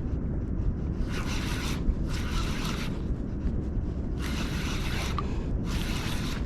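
Spinning reel being cranked in spurts of about a second with short pauses, reeling in a hooked small striped bass, over a steady low wind rumble on the microphone.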